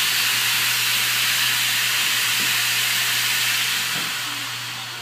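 Steady hiss of air blowing from the nozzle of a Build-A-Bear wash station, used to "wash" a stuffed animal, with a low hum underneath; the hiss eases off over the last second or so.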